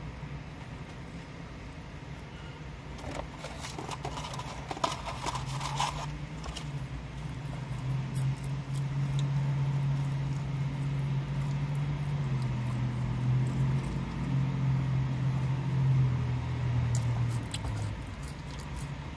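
A man humming a tune with his mouth closed while he eats, in low held notes that step from pitch to pitch and stop near the end. A few seconds in there are wet clicking and smacking sounds of chewing.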